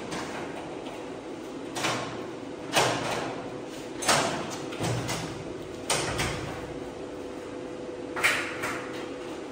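Heavy steel security door, just hung, being swung and shut by hand: about five sharp knocks a second or two apart, each with a short ring after it.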